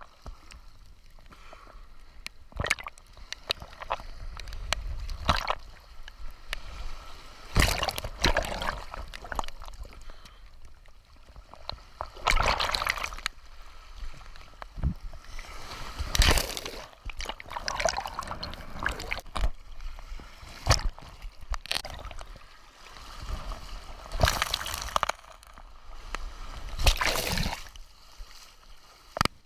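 Sea water sloshing and splashing in irregular surges, with a few louder splashes several seconds apart.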